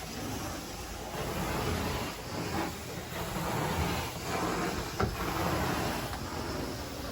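Carpet-cleaning machine worked back and forth over carpet: a steady rushing hiss that swells with each stroke, about once a second.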